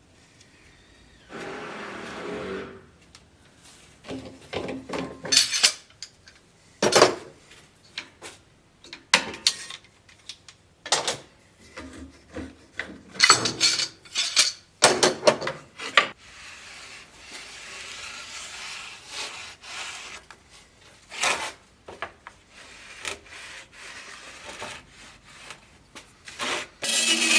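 A hand tool scraping and rasping on wood in irregular strokes with short pauses, as wood is shaped for a sword scabbard.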